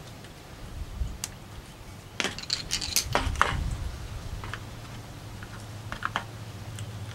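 Clicks and knocks of an outboard's plastic vapor separator tank being handled and set down on concrete, with a burst of rattling clatter about two to three and a half seconds in and a few lighter ticks after it. A steady low hum runs underneath.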